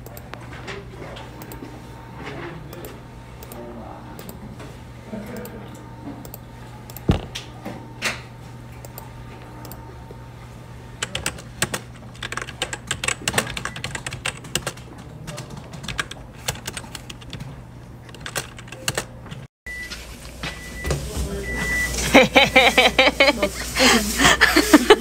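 Typing on a computer keyboard with mouse clicks, over a steady low hum. The clicks are scattered at first and turn into fast, dense typing about halfway through. Near the end this gives way to louder rustling and clatter.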